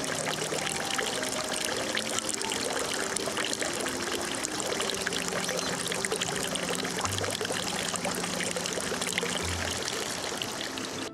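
Water from a bamboo spout pouring steadily into a full stone basin, a continuous splashing trickle.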